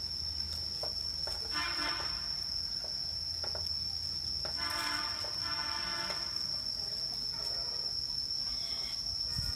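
A steady, high-pitched insect drone, with light clicks of hands handling chicken in a metal pot. Two tonal, horn-like calls from an unseen source come about 2 s and 5 s in, the second lasting over a second.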